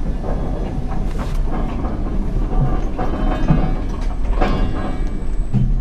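Rescue boat's engines running steadily as it gets underway: a constant low rumble with a few irregular knocks.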